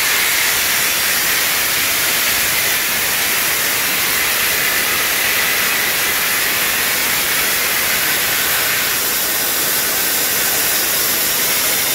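High-pressure waterjet stream spraying from the cutting head's nozzle into the catch tank, a loud, steady hiss.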